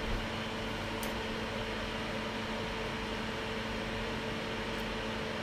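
Hot air rework station blowing steadily: an even hiss of air with a steady hum from its blower fan, heating the iPhone 6 logic board to lift off the faulty backlight filter.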